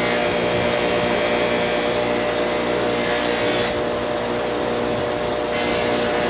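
Electric shop machine motor running steadily with a hum and a broad hiss; the hiss brightens for a couple of seconds partway through, as work is pressed against it.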